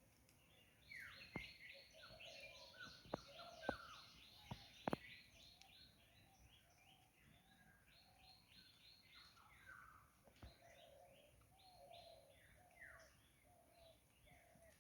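Several birds chirping and calling at once: a fast run of high chirps in the first few seconds, then scattered chirps, short falling whistles and lower calls. A few sharp clicks stand out above the birdsong.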